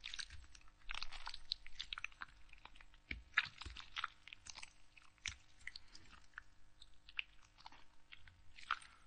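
A red tomato squeezed by hand, with irregular wet squelching and crackling that comes in clusters. The sound is busiest in the first second and a half and again around three to four and a half seconds in.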